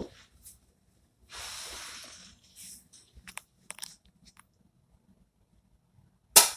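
Nerf foam-dart pistol being handled: a click, a second-long rustle, then a few light clicks as it is readied. Near the end comes a loud sharp snap as the blaster fires a dart.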